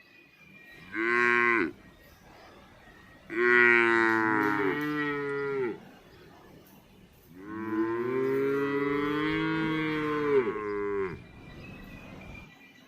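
A cow mooing three times: a short moo about a second in, then two long, drawn-out moos of a few seconds each.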